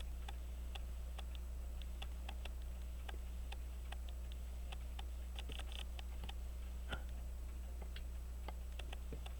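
Faint, irregular light clicks of small steel watchmaker's tools against a pocket watch movement as a tiny screw is picked up and started, over a steady low electrical hum.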